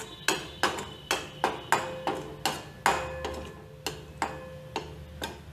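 Metal spatula knocking and scraping against a stainless steel kadhai while a wet mint-coriander masala is stirred, about three clinks a second with a faint metallic ring.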